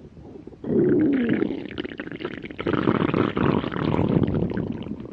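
A person's stomach growling: a long, gurgling rumble that starts suddenly about half a second in, with a wavering, falling pitch and many small bubbly crackles.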